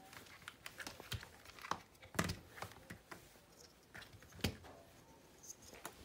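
Typing on a Moonlander mechanical keyboard with Gateron Pro White linear switches and low-profile keycaps: irregular, unhurried keystroke clacks, a few landing harder than the rest.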